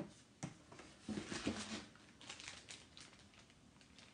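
Packaging rustling and items being handled in a box, with a few light knocks near the start and a longer rustle from about one to two seconds in.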